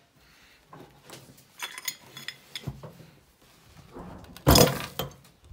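A steel wrench twisting the tail piece off a small metal munition part: scattered metal clicks and scrapes, then a loud clattering knock about four and a half seconds in.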